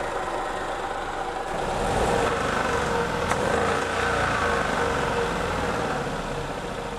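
Ford Ka's 1.0 three-cylinder engine running with an internal knock, picking up a little about two seconds in, with one sharp click a second later. The knock is a sign of serious internal damage, bad enough that revving it risks throwing a rod.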